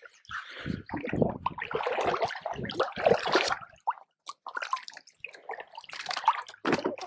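Water splashing and sloshing irregularly for about four seconds as a small hooked walleye is brought to the surface, then scattered short splashes and drips.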